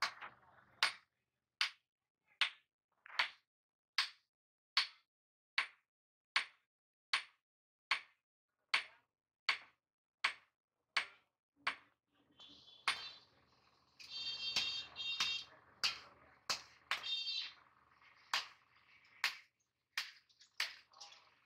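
Hand hammer striking red-hot steel on an anvil in a steady rhythm, a little over one ringing blow a second. About two-thirds of the way through, the blows come faster and less evenly over a steady high-pitched whine.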